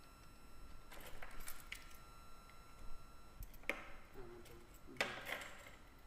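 Scattered clicks and knocks from a laptop being handled and typed on, a few seconds apart, over a faint steady electronic whine of several thin tones.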